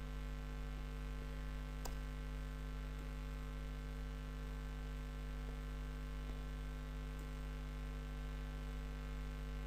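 Steady low electrical mains hum picked up in the recording, with a faint click about two seconds in.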